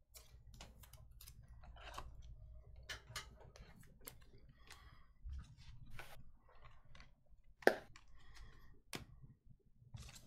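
Stiff trading cards handled by hand: scattered soft clicks and slides of card stock as a small stack is sorted through, with one sharper click about three-quarters of the way through.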